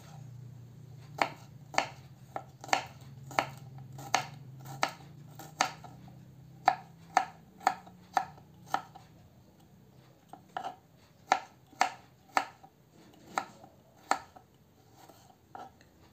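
Kitchen knife chopping garlic on a wooden cutting board: separate sharp knocks of the blade striking the board, roughly one to two a second, growing sparser and fainter near the end.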